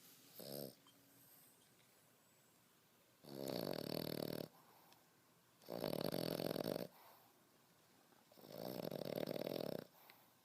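French Bulldog puppy snoring: three long snores, each about a second, coming about two and a half seconds apart, after a short, weaker one near the start.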